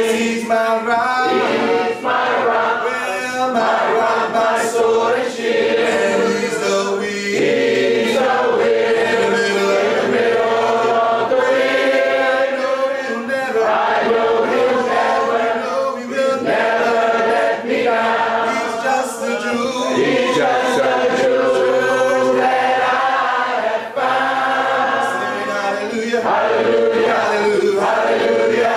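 Church congregation singing the invitation hymn a cappella: many voices together, no instruments, in unbroken sustained phrases.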